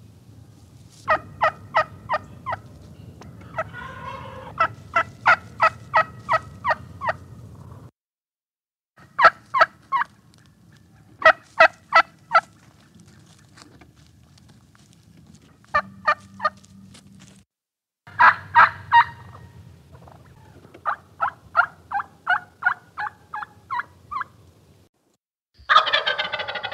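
Turkey yelping in repeated runs of short, evenly spaced notes, about four or five a second, in several abruptly cut segments. A louder, rattling gobble comes at the very end.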